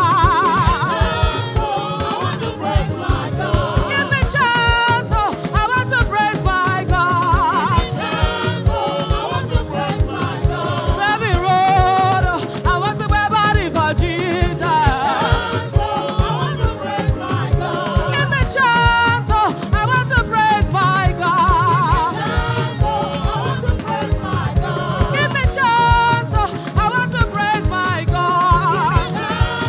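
Gospel choir singing praise with a band playing a steady, driving beat.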